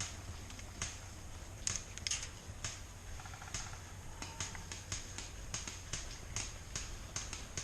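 Footsteps, about one to two a second, each a sharp crunching click, over a steady low rumble of wind on the microphone.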